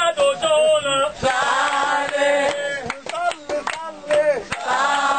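A man singing loudly in long held notes over a crowd, with scattered handclaps.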